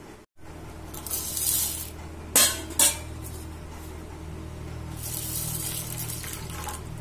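Tap water running into a steel bowl of urad dal in a steel sink near the end, after two sharp metallic clinks of the steel bowls, over a steady low hum.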